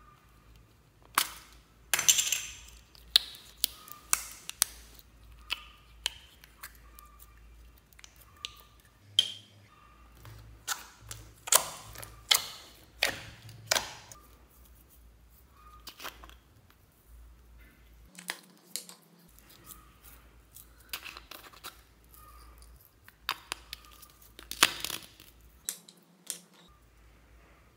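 Small plastic slime tubs and their lids being handled and opened: an irregular string of sharp clicks, taps and crinkles, the loudest about two seconds in, around twelve seconds and near the end.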